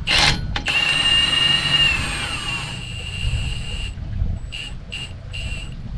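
Milwaukee cordless impact gun running a bolt in, with a steady high whine for about three seconds. Then several short trigger bursts near the end snug the bolt up.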